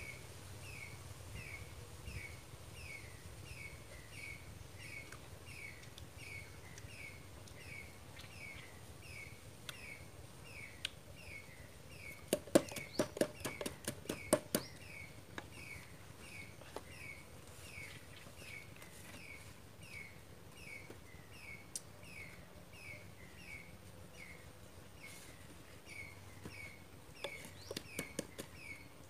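A stick pounding down into a bamboo-tube mortar: a quick run of about ten sharp knocks about halfway through, the loudest sound, and a few more near the end. Under it, a bird repeats a short falling chirp about one and a half times a second throughout.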